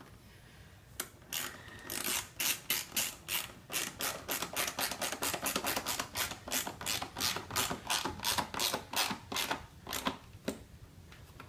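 Hand ratchet wrench clicking in a steady run of about four clicks a second as it is swung back and forth to tighten a bolt, slowing to a few last clicks near the end as the bolt runs up snug.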